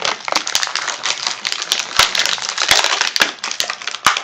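Plastic blister packaging crinkling and crackling as an action figure is worked free of it, with many sharp clicks and snaps.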